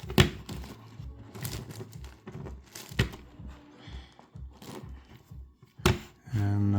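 Plastic layers of an 11x11x11 Rubik's cube being turned by hand: a run of irregular clicks and clacks.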